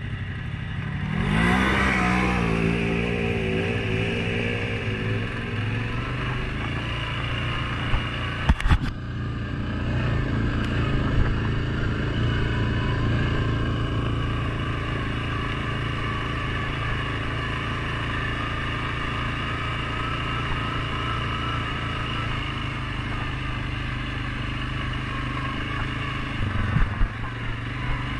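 Suzuki KingQuad 750 ATV's single-cylinder four-stroke engine, rising in pitch as it accelerates about a second in, then running at a steady speed. There is a sharp knock about eight seconds in and a few smaller knocks near the end.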